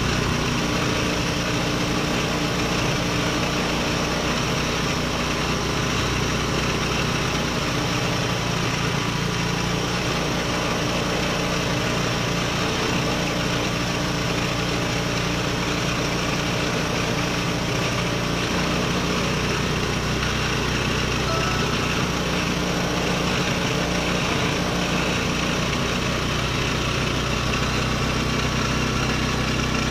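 Small scooter engine idling steadily while a carbon-cleaning liquid is fed into it from a syringe.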